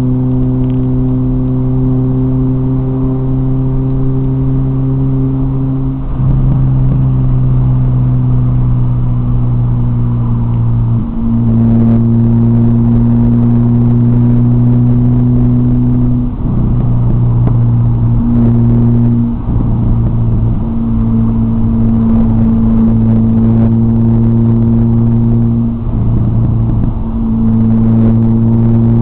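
Supercharged 2.0-litre four-cylinder of a 2006 Chevrolet Cobalt SS through a 3-inch exhaust, heard from inside the cabin while driving. It holds a steady, loud engine note, broken by brief dips about five times.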